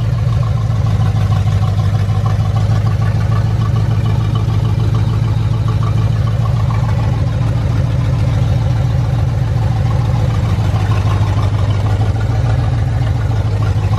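1992 Chevrolet Camaro engine idling steadily, with a squeak in the engine bay that the owner thinks is coming from a pulley.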